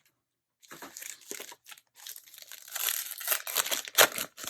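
Foil wrapper of a Yu-Gi-Oh! booster pack crinkling and tearing as a stubborn pack is worked open by hand, in two stretches with a short gap, loudest in a sharp crackle about four seconds in.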